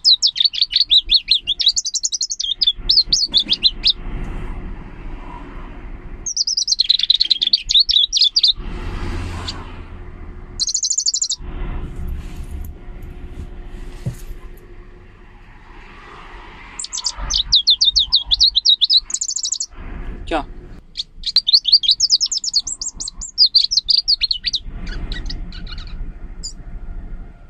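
Leaf warbler singing: bursts of rapid, high trilled notes, each phrase lasting a second or two, repeated after short pauses.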